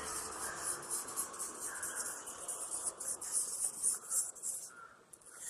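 Felt-tip sketch pen scribbling back and forth on paper, a quick run of scratchy strokes that stops about four and a half seconds in. The scribbling wears leftover yellow ink out of a freshly refilled nib.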